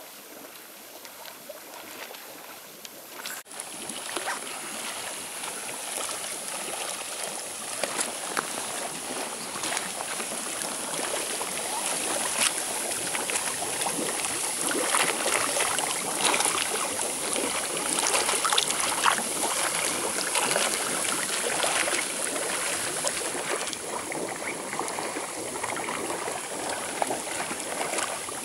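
Hot spring water welling up from the bottom of an iron-red, rock-lined pool and bubbling at the surface: a steady bubbling and splashing with fine crackles, which gets louder a few seconds in.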